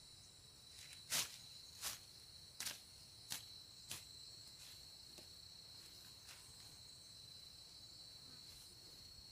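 Steady high-pitched insect chirring. Over it, a string of about five sharp crackles comes roughly two-thirds of a second apart in the first four seconds, then a few fainter ones.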